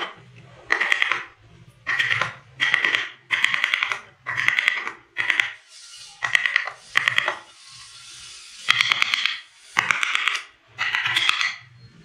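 Wooden mallet striking the handle of a carving gouge as it cuts into wood, in a steady rhythm of short clusters of sharp knocks about one every second, with a brief lull about two-thirds of the way through.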